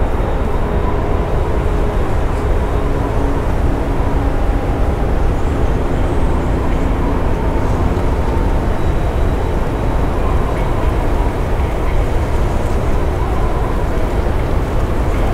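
Blizzard wind blowing hard and steadily, a dense rushing noise heaviest in the deep low end, with a few faint held tones wavering above it.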